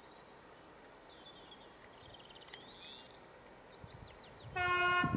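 Small birds chirping over a quiet trackside background, then the low rumble of an approaching Class 66 diesel freight locomotive, which sounds its horn loudly and steadily near the end.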